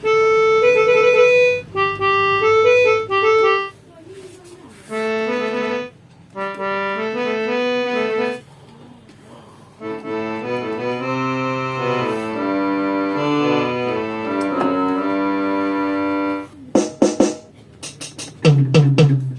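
Techno T9690i electronic keyboard playing its harmonium voice: reedy sustained notes in three short melodic phrases with brief pauses between, the last phrase fuller with chords. A few short sharp hits follow near the end.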